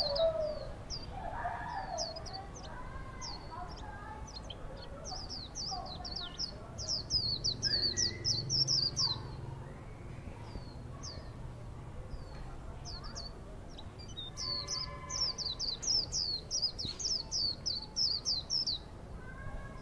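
Small yellow cage bird singing rapid runs of short, high, thin notes, each slurring downward. There are two long runs, one in the middle and one toward the end, with scattered single notes between.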